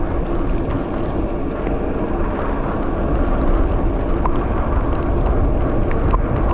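Steady loud wind noise on the microphone from riding a bicycle downhill in the rain, with many small scattered clicks and ticks over it.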